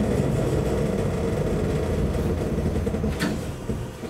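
Cab interior of a Yokkaichi Asunarou Railway narrow-gauge electric train rolling slowly over pointwork, a steady low rumble of motors and wheels that eases off near the end as the train slows to a stop at the terminus. A single sharp click comes about three seconds in.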